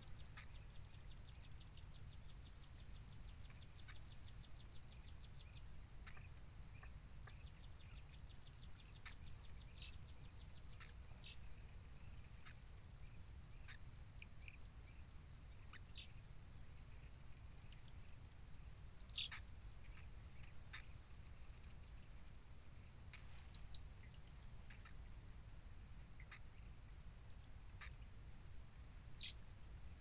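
Steady high-pitched insect drone, with scattered short chirps and clicks and a quick run of ticks a few seconds in; a sharper click about nineteen seconds in is the loudest moment.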